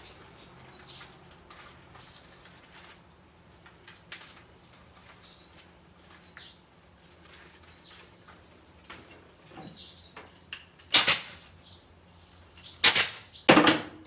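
Galvanized chicken wire being bent and worked by gloved hands: light scattered rustling and scraping of the wire mesh, then louder crinkling rattles of the wire three times near the end. Short high chirps come and go throughout.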